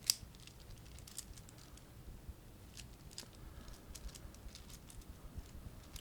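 Infinity cube fidget toy being folded over in the hands, its hinged blocks clicking against each other: one sharp click at the start, then light, irregular clicks.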